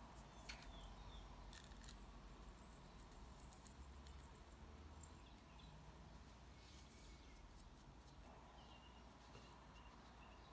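Near silence: faint room tone with a few soft clicks and taps from a glass spice jar being shaken and handled over a measuring cup.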